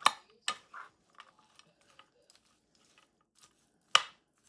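Spoon knocking against a casserole dish while stirring: a few sharp clacks in the first second and one more near the end.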